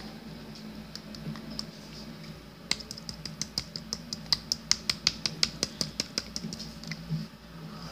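A fast, even run of light plastic clicks, about five or six a second, starting a little under three seconds in and stopping about three and a half seconds later, as a toy bottle works against a Baby Alive doll's mouth. A low steady hum sits underneath.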